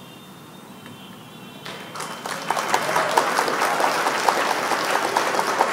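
Applause sound effect, a crowd clapping, fading in about two seconds in and then holding steady as the quiz answer is revealed.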